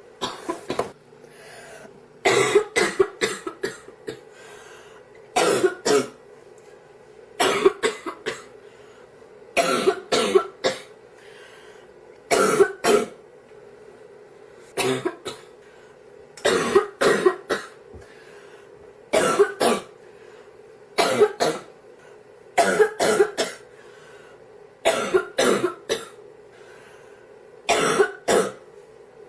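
A girl coughing in repeated short fits of two to four coughs, a new fit every two to three seconds: the persistent cough of a cold.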